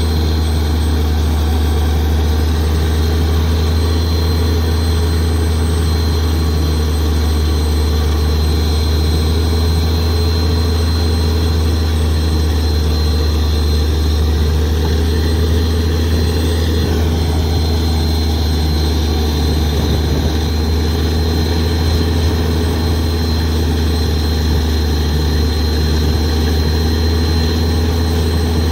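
A heavy engine running steadily at a constant speed: a deep, even hum with no change in pitch or level.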